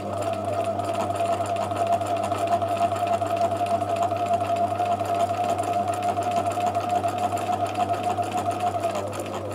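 Bernina 1008 sewing machine running at a steady speed, stitching a straight line through fabric: an even motor hum over rapid needle ticking, with a little clunking. The machine has been freshly cleaned and oiled and is being run on scrap fabric to work off the excess oil.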